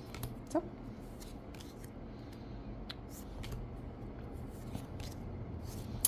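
Magic: The Gathering token cards being thumbed through in the hand: faint, scattered clicks and slides of card on card.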